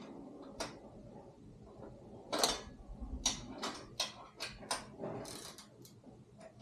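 Socket ratchet clicking as the side rack's mounting bolts are tightened back down, a string of sharp metal clicks with a louder clank about two and a half seconds in and quicker clicks about three a second after it.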